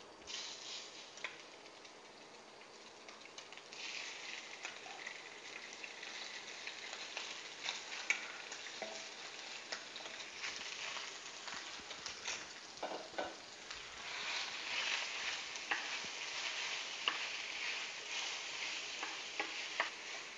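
Marinated beef slices sizzling in hot vegetable oil in a stainless steel frying pan as they are added and stir-fried, with scattered clicks of utensils against the pan and bowl. The sizzle grows louder about four seconds in and again past the middle as more meat goes in.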